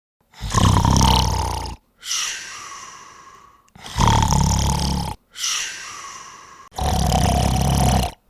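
A person snoring: three loud snores about three seconds apart, each followed by a quieter breath that fades away.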